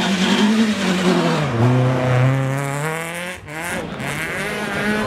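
Rally car engine revving hard through a snowy corner, its pitch rising and falling with the throttle. The first car is a Citroën C2. About three and a half seconds in, the sound breaks off sharply and a second rally car is heard passing at high revs.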